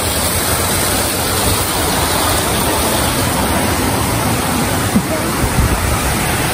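Steady rush of flowing water, an even, unbroken noise.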